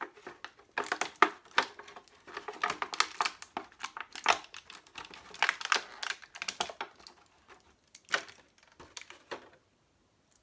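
Plastic toy packaging crinkling and clicking in irregular bursts as small action-figure accessories are worked out of their tray, stopping shortly before the end.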